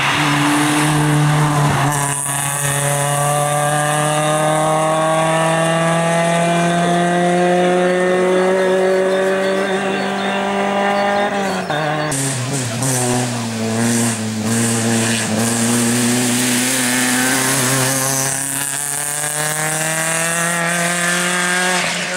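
Suzuki Swift rally car's engine under hard acceleration. Its pitch climbs steadily through one long pull of about ten seconds, drops sharply about halfway through as the throttle comes off, then climbs again over the last few seconds.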